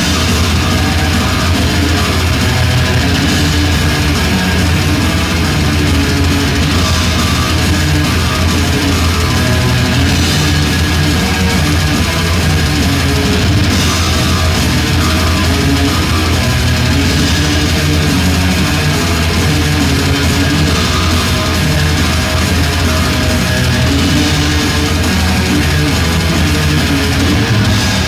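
Melodic death metal band playing live at full volume, distorted electric guitars over a pounding drum kit, kicking in abruptly as the song starts.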